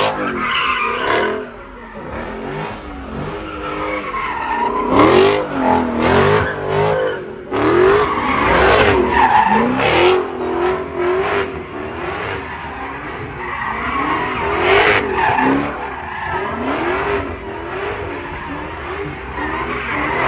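Cars spinning donuts: engines revving up and down over and over, with tires squealing and skidding on the pavement. The first is a red Dodge Charger, the second a purple Chrysler 300.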